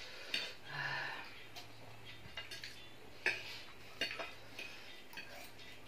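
Metal forks clinking and scraping against a ceramic plate while noodles are twirled and picked up, with a few sharp clinks, one shortly after the start and a cluster a little past the middle.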